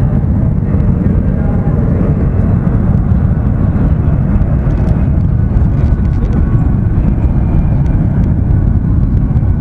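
C-17 Globemaster III's four turbofan jet engines running as the heavy transport rolls along the runway: a loud, steady, deep rumble.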